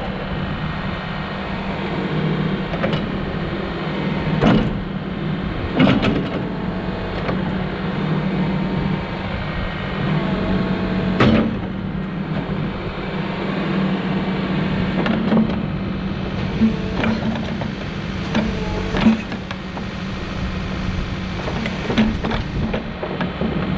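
Case 590 Super N backhoe loader's diesel engine running steadily under hydraulic work, with a handful of sharp knocks and brief hydraulic whines as the backhoe is operated.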